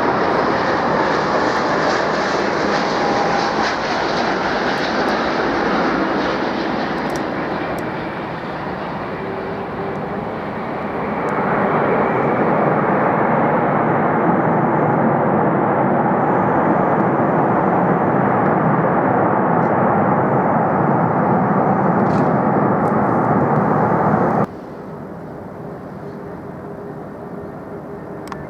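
Jet airliner engines roaring loudly and steadily. The roar eases a little, comes back up sharply about eleven seconds in, then cuts off abruptly about three quarters of the way through, leaving a much quieter background rumble.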